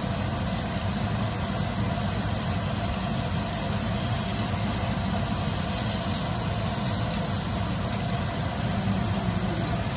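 A steady low hum with an even rushing noise over it, unchanging throughout.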